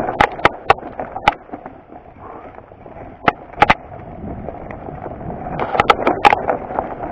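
Mountain bike descending a rocky dirt trail: tyres crunching over loose stones while the bike clatters with sharp knocks and rattles as it hits rocks. The knocking is thick at first, thins out in the middle with two hard knocks a little past three seconds, and thickens again about six seconds in.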